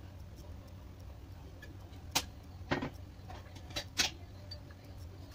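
Four sharp clicks and light knocks from a glass bottle of light soy sauce being handled and set down, starting about two seconds in, over a low steady hum.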